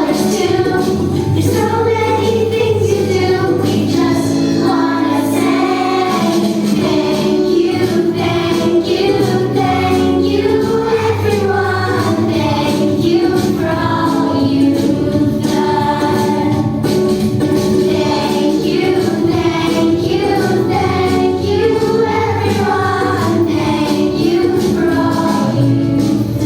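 A group of voices singing a song together over instrumental accompaniment.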